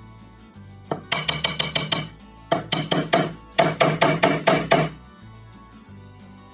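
Rapid hand-tool strokes on wood in three runs of about six or seven strokes a second, the last run the loudest, over background music with a steady beat.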